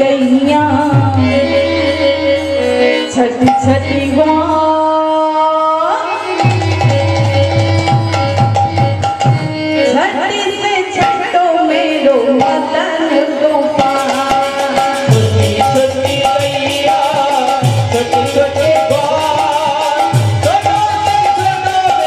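Bengali kirtan music: a woman singing over two khol barrel drums beating out the rhythm, with sustained melodic accompaniment. About two-thirds of the way in, a bright, rapid high-pitched clatter joins and thickens the sound.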